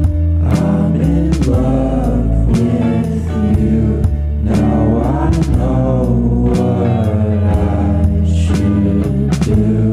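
Background song: a singing voice over instruments with a steady bass line.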